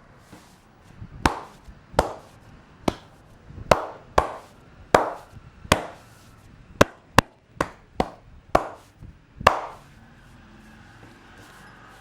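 Percussive head-massage strokes: hands slapping the head and shoulders about a dozen times, roughly one to two a second in an uneven rhythm. Each slap is sharp with a short hollow ring, and the slaps stop about two seconds before the end.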